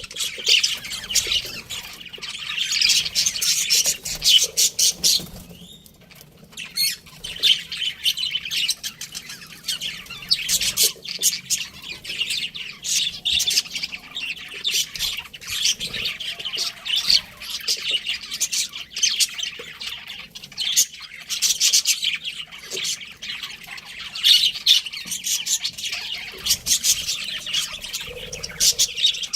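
Pet budgerigars chirping and chattering in rapid, high-pitched calls, with a short lull about six seconds in.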